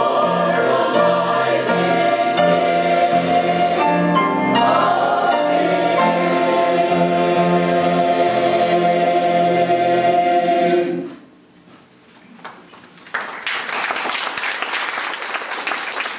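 Church choir singing, ending on a long held final chord that stops about eleven seconds in. After a short pause, the audience applauds.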